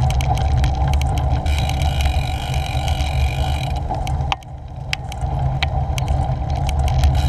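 Bicycle tyres rolling over a rough path: a steady low rumble with scattered ticks and rattles. It is picked up by a GoPro mounted on the bike and dips briefly quieter a little past the middle.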